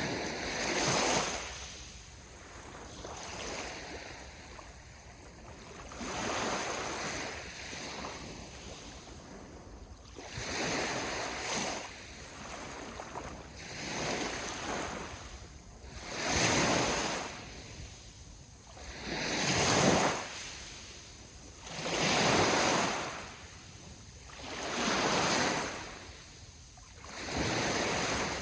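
Sea waves washing in one after another, each surge swelling and fading every two to three seconds, the later ones louder.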